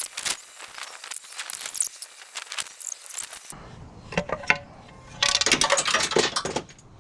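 Hand tools and small metal parts being handled: scattered metallic clicks and clinks, then a rapid run of clicking for over a second near the end.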